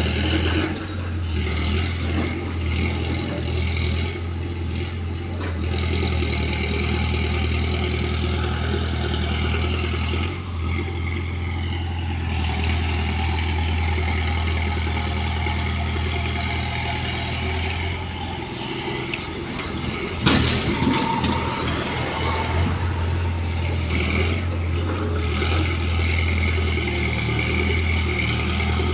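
Motor vehicle engine running steadily with road noise over it. The hum drops out briefly about two-thirds of the way through, followed by a single sharp knock.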